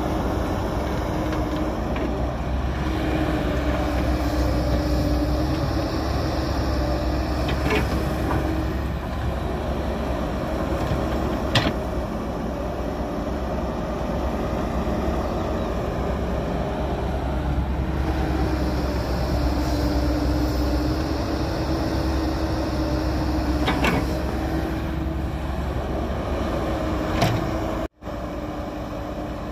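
Hydraulic excavator's diesel engine running steadily under working load, its pitch rising and falling as the hydraulics are worked, with a few sharp knocks. The sound drops out briefly near the end.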